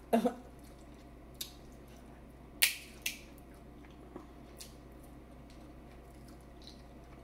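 Someone eating seafood boil: scattered small wet mouth clicks and smacks while chewing, with one louder sharp smack or crack about two and a half seconds in and a smaller one just after.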